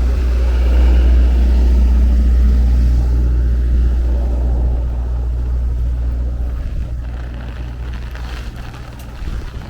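Strong storm gusts buffeting the microphone as a heavy low rumble with a rushing hiss above it, easing off over the last few seconds.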